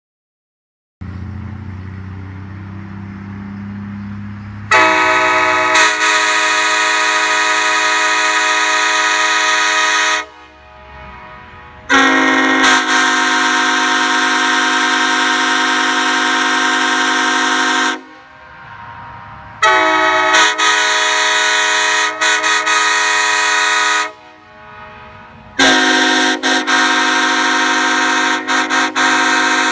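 Nathan Airchime five-chime train horns, a K5LA and a K5HL, blown in turn: four long blasts of about four to six seconds each. The second and fourth blasts sit lower in pitch, fitting the K5HL with its large 1L bell against the higher K5LA. The last two blasts dip briefly a few times, and a low hum comes before the first blast.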